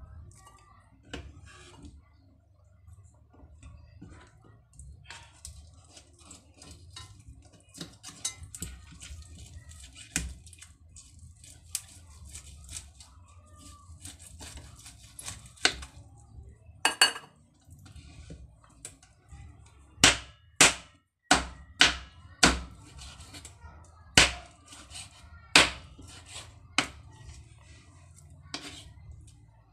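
Knife chopping through a roasted pork head on a cutting board. Light, scattered chops and knocks at first, then a run of loud sharp chops about one a second in the last third.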